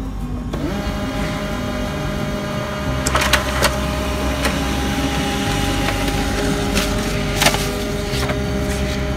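HP LaserJet MFP M28–M31 laser printer running as it feeds a printed page out: a steady motor and gear hum with a few sharp clicks from the paper mechanism, starting about three seconds in and again near the end.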